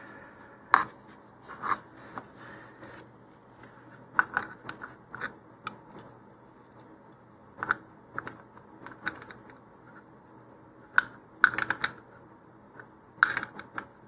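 A wrench tightening a nut and washer onto a steel eyebolt through a wooden centering ring: irregular sharp metal clicks and taps as the wrench is repositioned and turned, with a quick cluster of clicks near the end.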